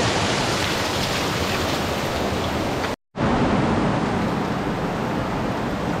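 Waterfall and cascading stream in very high flow, a loud steady rush of water. It cuts out for a split second about halfway, then carries on.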